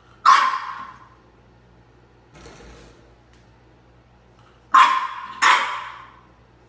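French bulldog puppy barking: three sharp barks, one just after the start and two in quick succession about five seconds in, echoing off a tiled room.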